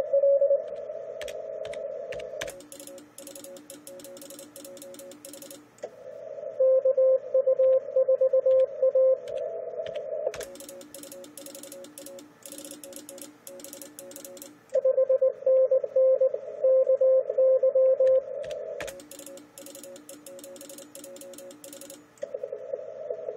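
Morse code on a 10-metre amateur radio transceiver. Loud runs of keyed CW at one steady pitch, each a few seconds long, alternate with fainter Morse from other stations at lower and higher pitches. Clattering computer keyboard typing falls between the loud runs as contacts are logged.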